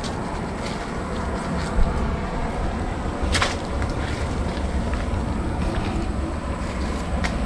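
Footsteps and brush crackling through dry leaf litter and undergrowth over a steady low rumble. There is a sharper rustle or snap about three and a half seconds in and another near the end.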